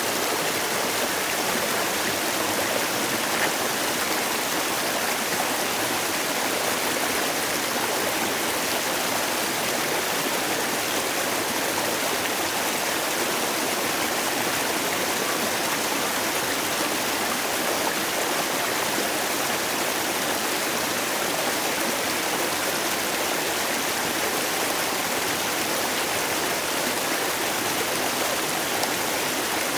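Mountain stream rushing over rocks, a steady, even flow of water with no breaks.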